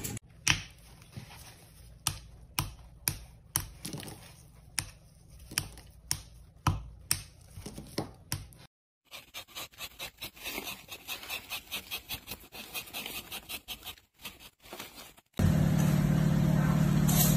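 A metal blade chopping a crumbly yellow block into small cubes, a sharp crunch with each stroke, roughly every half second. After a cut comes a run of quicker, lighter ticks, and near the end a loud steady machine hum begins.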